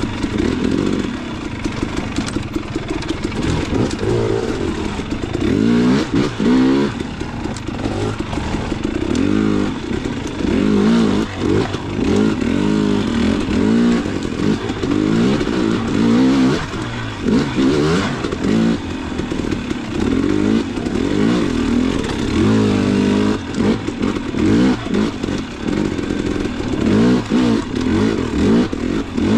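Dirt bike engine being ridden hard over rough trail, its revs rising and falling over and over as the throttle is worked every second or two.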